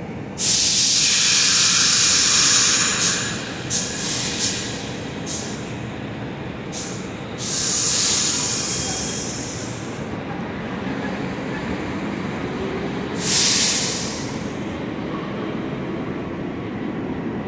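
R62A subway train at a station platform, letting off loud bursts of compressed-air hiss, a long one at the start then several short puffs and further hisses, over a low steady rumble. Toward the end the train pulls out with a faint rising motor tone.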